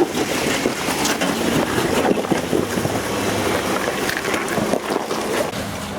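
Jeep Wrangler crawling forward over rock with its engine running low, heavily buffeted by wind noise on the microphone, with scattered knocks and crunches of tyres and rock.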